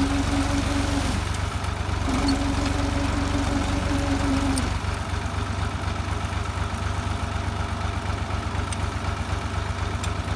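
Ursus tractor's diesel engine idling with a steady low throb. A steady higher hum sits over it for the first second and again from about two to four and a half seconds in.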